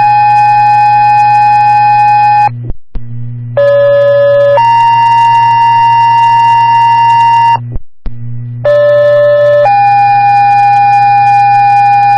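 Two-tone sequential pager tones over a scanner radio, alerting fire and EMS units to a call. Each set is a steady tone of about a second followed by a held tone of about three seconds at a different pitch. One set is ending as it starts, two more follow after brief breaks, and a low hum runs underneath.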